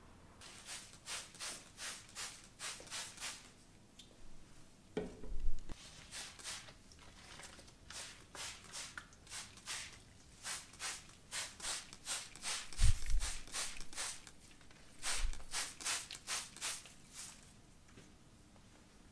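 Hand spray bottle misting houseplants: short, sharp sprays in runs of several, about two to three a second, with pauses between runs. A few dull knocks come in between, the loudest around five and thirteen seconds in.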